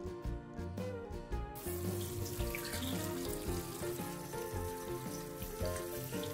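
Tap water running into a stainless steel sink, starting about a second and a half in. It splashes over cherry tomatoes being rinsed by hand in a metal bowl, with background music underneath.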